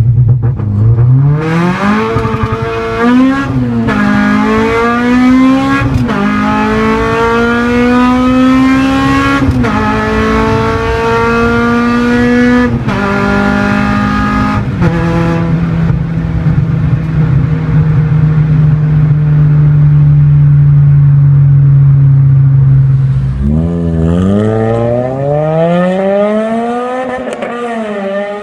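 Honda Civic Type R EP3's 2.0-litre K20 four-cylinder held at a steady engine speed on launch control, then accelerating hard through several upshifts. The pitch climbs and drops sharply at each shift, then holds a steady high note for several seconds. Near the end another EP3 Civic Type R with an Idol cat-back exhaust revs up and drops back.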